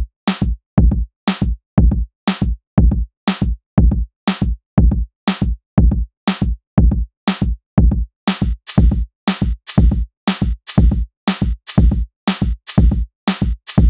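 Electronic background music built on a steady drum-machine beat of about two strong beats a second. A brighter hissing layer joins about eight seconds in.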